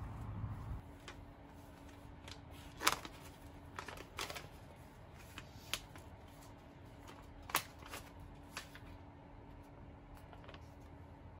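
A card-backed product package being handled and turned over in the hands: scattered paper crinkles and sharp ticks, loudest about three and seven and a half seconds in, over a faint steady hum.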